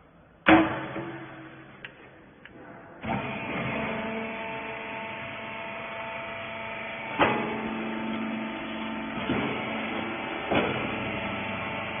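A loud metal bang as the hydraulic rag baler's loading door is slammed shut. About three seconds in, the baler's electric motor and hydraulic pump start and run steadily with a hum, with a few clunks as the ram presses the rags.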